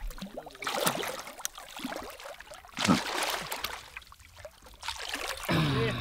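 Catfish thrashing and splashing at the water's surface as it is landed by hand, in irregular bursts, the loudest about a second in and about three seconds in.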